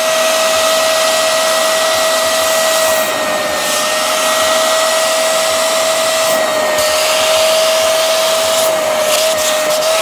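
Hoover CleanSlate upholstery extractor running: a steady motor whine over the rush of suction air, used with plain water to rinse fabric. The hiss of air drops briefly three times.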